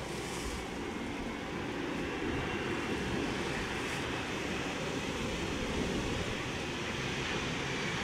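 Strong typhoon wind rushing over the microphone in a steady noisy wash, with the faint whine of a regional jet's engines as it comes in to land.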